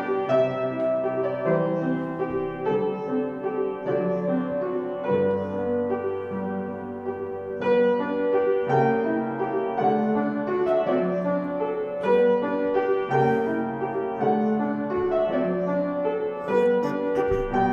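Piano playing a slow instrumental piece, sustained chords changing about once a second.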